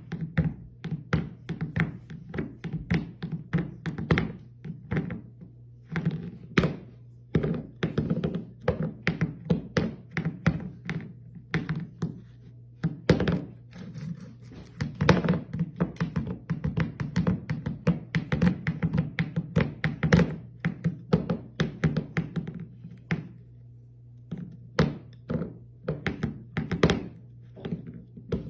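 A cat repeatedly banging and rattling its food bowl against a hardwood floor, several knocks a second with a few short pauses: a cat demanding to be fed.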